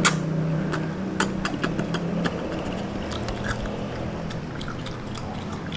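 Mouth sounds of eating noodles: a sharp click, then a run of short wet smacks and clicks while chewing, thinning out after about three seconds, over a steady low hum.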